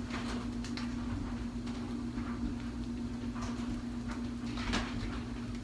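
A steady low electrical hum from a kitchen appliance, with scattered light clicks and taps of things being handled, the loudest about three-quarters of the way through.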